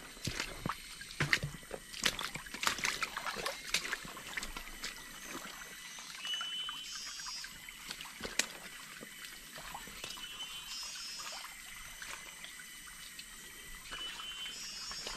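Footsteps splashing through a shallow, fast-trickling jungle stream, with sharp splashes through the first few seconds, then mostly the steady trickle of the water. A short high chirping call repeats three or four times in the second half.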